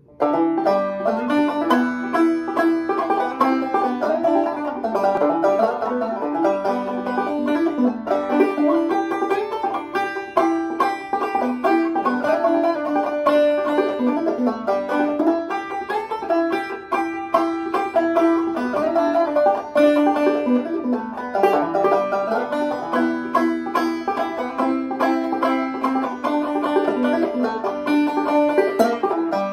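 Solo Gold Tone five-string banjo played clawhammer style: a fast, continuous run of picked and brushed notes over a full tune passage, the last notes left ringing.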